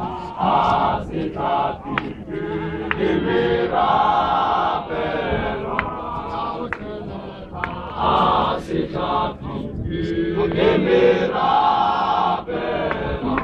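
Men's choir of a Zion Christian Church Mokhukhu group chanting a hymn in unison, in phrases that swell and fall back every few seconds, with a few short sharp knocks among the voices.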